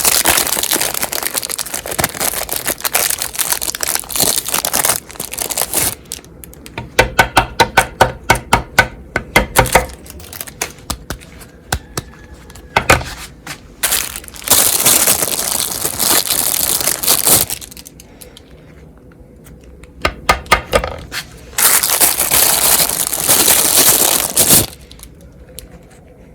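Frozen chocolate-coated ice cream bars crunching and crackling as a meat grinder crushes them. The sound comes in several bouts of a few seconds with quieter pauses between, and some bouts are fast runs of sharp cracks.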